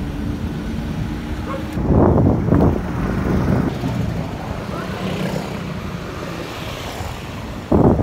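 Road traffic heard from a moving bicycle: the low running of a passing car and motorbike on a residential street. Wind buffets the microphone loudly about two seconds in and again suddenly near the end.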